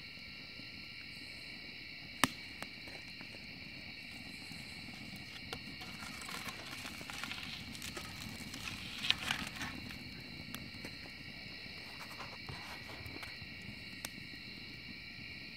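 Wood fire crackling and popping in a metal fire pit. There is one sharp pop about two seconds in, and a burst of dense crackling around the middle as sparks fly up. Insects sing steadily in the background.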